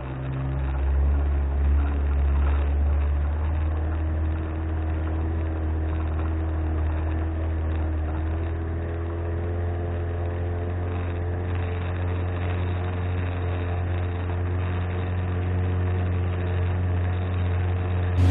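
1997 Johnson 25 outboard, a two-cylinder two-stroke, running under way and pushing the boat along. It picks up a little about a second in, then holds a steady pitch.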